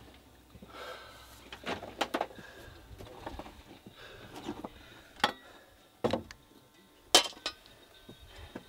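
Irregular knocks, clinks and scrapes of a miner climbing up a timbered shaft, his hand hammer and gear knocking against wood and rock, with the sharpest knocks about five and seven seconds in.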